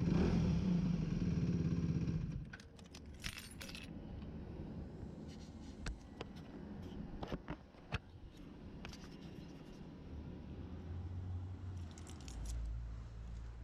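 Aprilia RS4 125's single-cylinder four-stroke engine idling, then cut off abruptly about two seconds in. Afterwards come scattered light metallic clicks and jingles.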